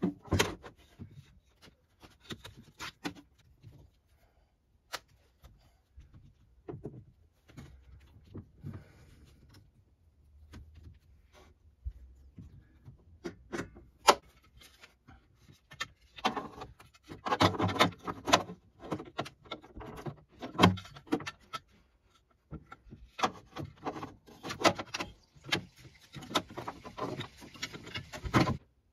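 Hand tools and metal battery-cable hardware clinking, knocking and rattling as battery terminal connections are worked on by hand. The sounds come in scattered bursts, with denser runs of quick clicks in the second half.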